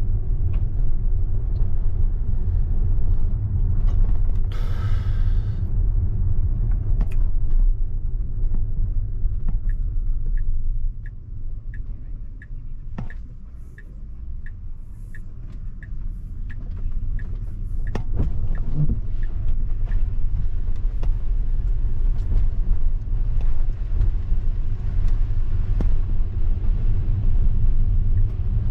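Low, steady road and tyre rumble inside a Tesla's cabin as it drives on wet pavement. The rumble fades as the car slows nearly to a stop, then builds again as it pulls away. While it slows and stops, the turn signal ticks about twice a second.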